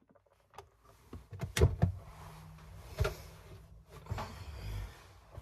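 Clothes being handled on a tabletop: fabric rustling, with a few knocks about one and a half, three and four seconds in.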